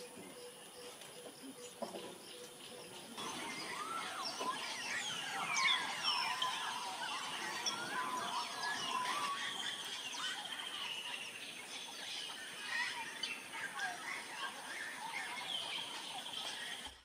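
A large flock of African grey parrots calling all at once, a dense mix of overlapping whistles and squawks. It starts suddenly about three seconds in, after a quieter stretch of outdoor ambience.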